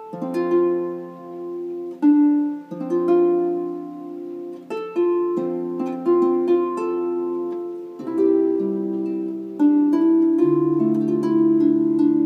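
Double-strung harp played with both hands in a quick Scottish-style figure. Plucked notes come in rapid succession and ring on under one another, the pattern repeating every second or two.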